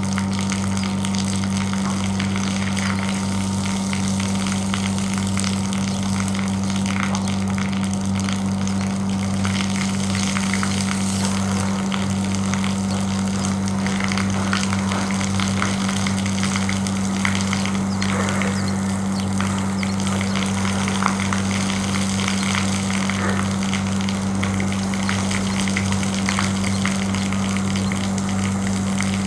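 Water from a garden hose hissing and splashing over a window air conditioner unit during washing, over a loud, steady low electric hum.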